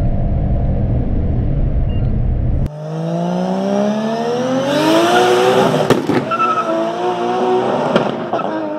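Steady low rumble of road and wind noise from a car at high speed, which cuts off suddenly under three seconds in. Then a car engine revs up in a steadily rising pitch, breaks off about three seconds later as a gear is changed, and rises again.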